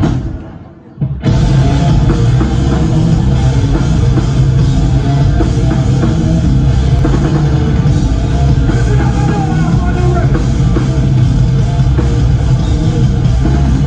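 Live rock band playing loud, with electric guitars and drums. The sound drops away for about a second at the start, then the full band comes back in.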